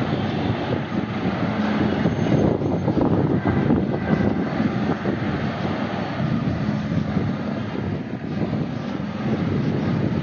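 Steady vehicle engine rumble with some wind on the microphone.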